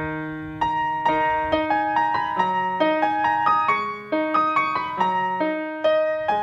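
Background piano music: a melody of struck notes, each fading after it is played, over lower sustained notes.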